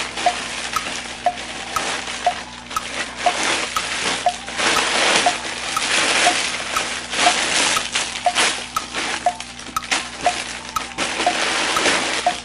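Clear plastic bags crinkling and crackling as solar garden stake lights wrapped in them are handled close to the microphone, in irregular bursts of rustle.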